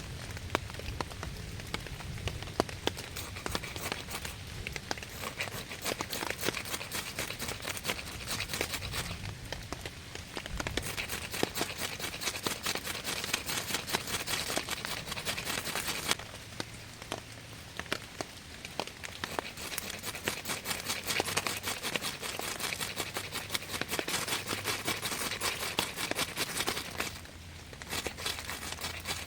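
Rain pattering steadily, with dense crackling and rustling over it. It eases twice, briefly.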